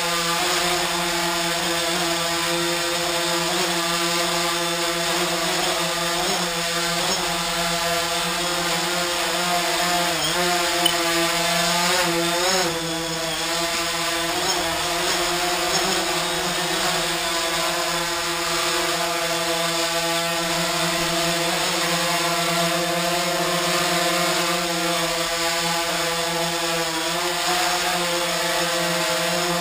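Small quadcopter drone's propellers and motors buzzing steadily as it hovers, a many-toned whine whose pitch wavers briefly a few times around the middle.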